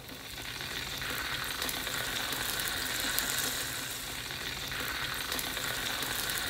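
Oil sizzling in a wok, a steady hiss with scattered small crackles.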